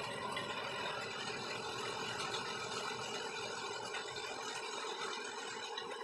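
Heavy monsoon rain falling outside, heard from inside a room as a steady, even hiss.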